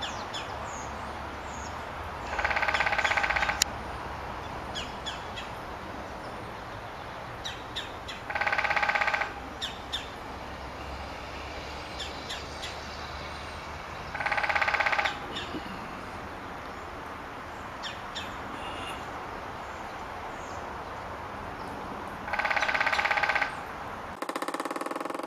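Woodpecker drumming: four rapid drum rolls on resonant wood, each a little over a second long and about six seconds apart, with faint chirps of other birds in between.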